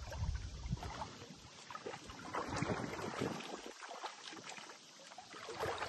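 Water sloshing and a run of small, irregular splashes as a hooked mullet thrashes at the surface near a person wading waist-deep in the river.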